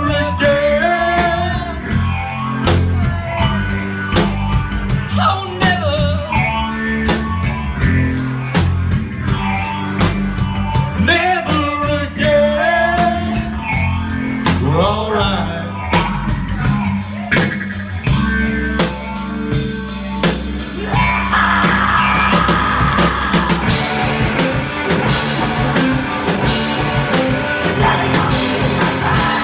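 Live rock band playing: a singer over electric guitar, bass guitar and drum kit. About halfway through the singing stops and the band plays on in a denser, slightly louder instrumental passage.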